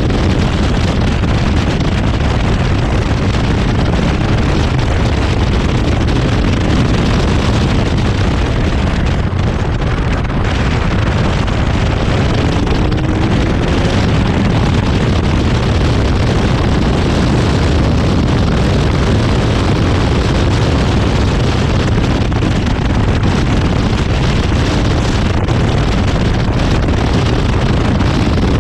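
Zenos E10R's turbocharged four-cylinder engine running hard at track speed, heavily masked by wind buffeting across the open cockpit's camera microphone. The loud, dense noise holds steady throughout.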